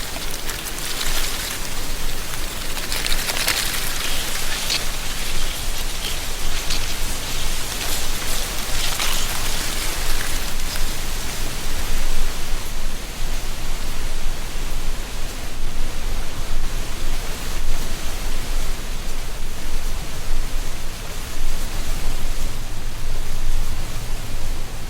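Wind through a tree canopy, rustling dry autumn leaves as a steady hiss. Louder surges of rustle come in the first ten seconds or so, then it settles into an even rush.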